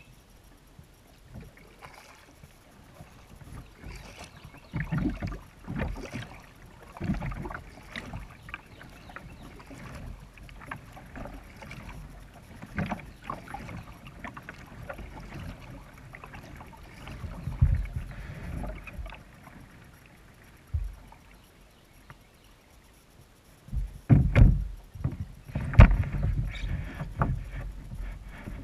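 Kayak paddling: a double-bladed paddle dipping and pulling through river water in uneven strokes, with splashes and dull low thumps against the plastic hull. The strokes come harder and louder near the end.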